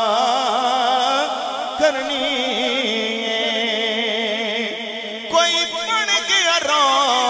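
A man singing a devotional naat line into a microphone, drawing out long, wavering, ornamented notes; a new phrase begins about five seconds in.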